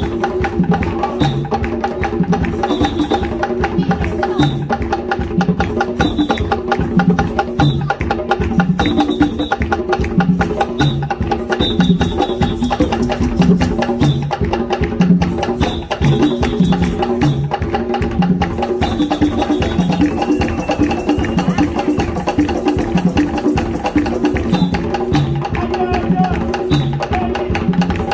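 Music with busy percussion: a steady rhythm of pitched drum strikes and wood-block-like clicks over sustained tones.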